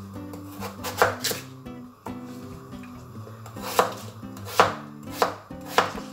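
Kitchen knife cutting through a raw potato and striking a wooden cutting board: about six sharp chops at uneven intervals, with soft background music underneath.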